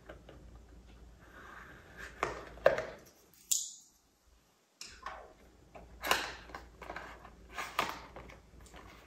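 Scissors snipping through the tape seal of a small cardboard box, a few sharp clicks, followed after a brief silence by the box being handled and opened, with cardboard rubbing and scraping in short bursts.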